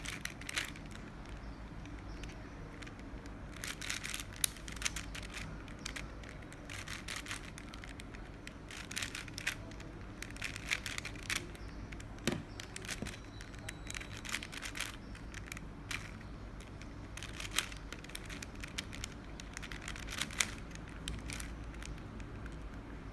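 Rubik's cube being turned by hand, its layers clicking and rattling in quick runs of turns broken by short pauses.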